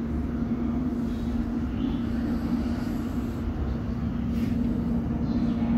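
Steady low rumble and constant hum inside a London Underground District line S7 Stock carriage.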